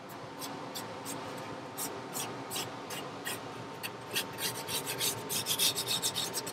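Pencil strokes scratching across a Ram Board paper template as lines are drawn on it by hand. The short strokes are sparse at first and come faster and closer together in the second half.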